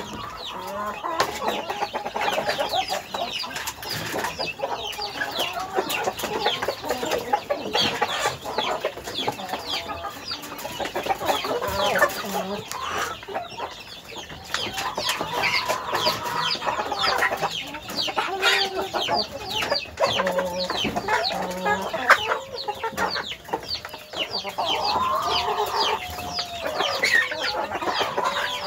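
A flock of domestic hens clucking continuously, their calls overlapping, with many short sharp clicks mixed in.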